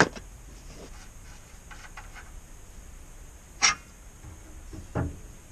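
Hand tools and steel suspension parts knocking together: a sharp knock right at the start, a few faint ticks, a louder ringing metallic clink about three and a half seconds in, and a duller knock near the end.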